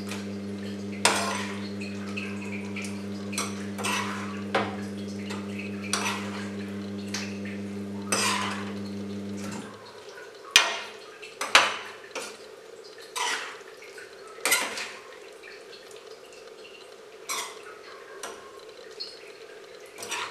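Metal ladle scraping and knocking against a metal kadai while slowly stirring a thick paneer and mushroom gravy, in irregular strokes about once or twice a second. A steady low hum runs underneath and cuts off suddenly about ten seconds in.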